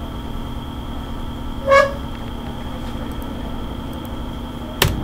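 One short horn toot about two seconds in, over a steady background hum, followed by a single sharp click near the end.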